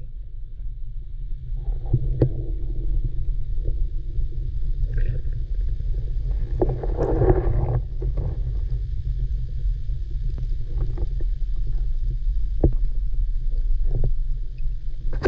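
Muffled low underwater rumble of moving water, picked up by a camera in a waterproof housing, with scattered faint clicks and knocks. A louder rush lasts about a second around seven seconds in.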